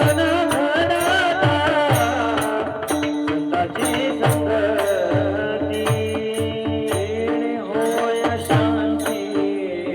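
Marathi kirtan music: a melismatic sung line weaving over a steady harmonium-like drone, with regular hand-drum strokes and the jingle of small cymbals keeping the beat.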